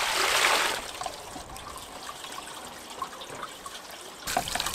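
A sponge scrubbing a barbecue lid for about the first second, then soapy water trickling and dripping, with a louder splash of water near the end.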